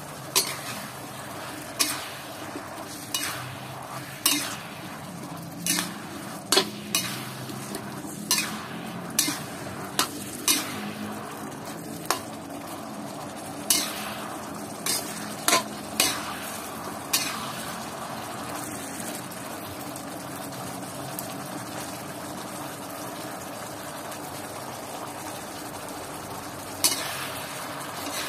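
Baby corn sizzling in oyster sauce in a metal wok. A metal spatula scrapes and knocks against the wok about once a second for the first seventeen seconds or so. After that there is a steady sizzle, with one more knock near the end.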